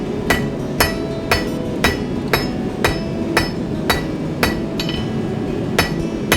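Hand hammer striking steel on an anvil at a steady pace of about two blows a second, each blow leaving a short metallic ring.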